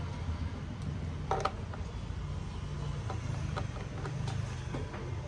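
A few light clicks of a screwdriver and small screws, the clearest about a second in, while the back-panel screws of an Acer Aspire 5738 laptop are undone. A steady low rumble runs underneath.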